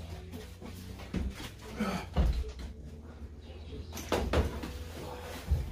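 Knocks and bumps of a car seat being handled and lifted out of a Mazda RX8's stripped interior, with a cluster of louder knocks about four seconds in.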